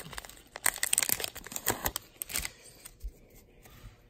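Wrapper of a baseball card pack crinkling in the hands for the first two and a half seconds or so, then a few soft clicks of the cards being handled.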